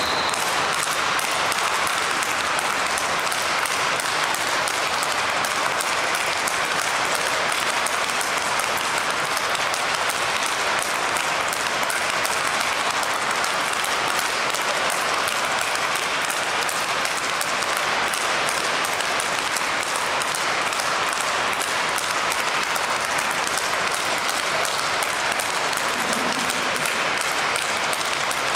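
Speedball rackets striking tethered balls in rapid succession, a steady, dense clatter of hits echoing in the sports hall.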